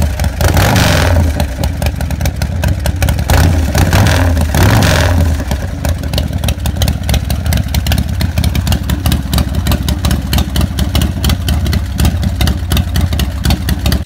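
S&S 145-cubic-inch V-twin engine in a custom chopper running, revved twice in the first five seconds and then settling to a steady idle of fast, even firing pulses.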